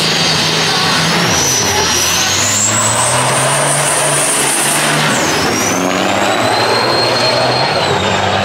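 Two diesel semi trucks drag racing at full throttle. A high turbo whine climbs, drops sharply about five seconds in, then climbs again, while the deep engine note steps with the gear changes.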